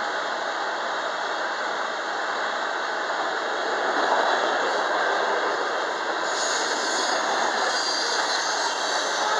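Freight train covered hopper cars and boxcars rolling past at speed: the steady noise of steel wheels running over the rails. A faint high squeal joins in about six seconds in.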